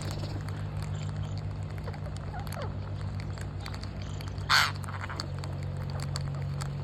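A parrot gives one short, loud squawk about four and a half seconds in, among small scattered clicks and over a steady low hum.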